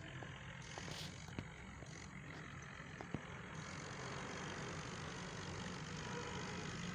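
Swaraj 855 tractor's diesel engine running steadily under the load of a big trolley, with a few light clicks and rattles. It grows a little louder about halfway through.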